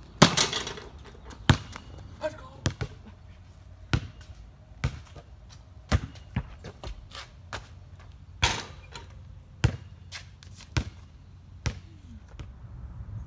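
A basketball bouncing on a concrete driveway, a short sharp thud roughly every second. Two louder, ringing impacts stand out, one right at the start as the ball reaches the hoop and another about eight and a half seconds in.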